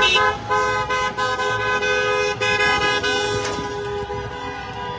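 Car horns honking in several long, steady blasts from passing traffic, drivers honking in support of the protesters.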